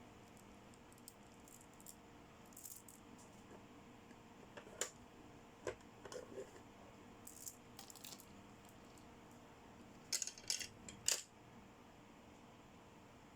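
Small plastic toy accessories being handled: faint scattered clicks and clinks with brief rustles, and a quick run of clinks about ten seconds in, the loudest.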